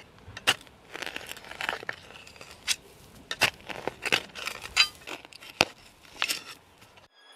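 Waterfly folding military shovel digging into dry, sandy soil: the metal blade chops and scrapes the ground in a dozen or so irregular strokes, with loose earth crunching and scattering between them.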